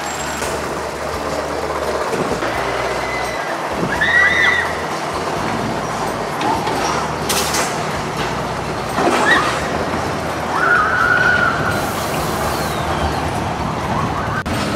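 Outdoor amusement-park ambience: a steady rumble of rides and traffic, broken by a few short high squeals, one about four seconds in and another near eleven seconds, and a couple of brief sharp sounds in between.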